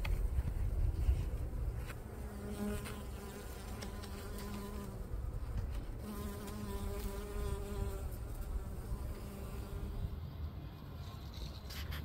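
A flying insect's wings buzzing close by, the hum coming and going in several passes, strongest around two to three seconds in and again from about six to eight seconds in. A low rumble sits under the first second or two.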